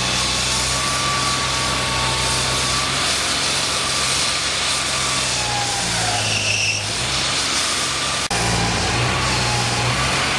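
An engine running steadily, with a brief high tone about six and a half seconds in.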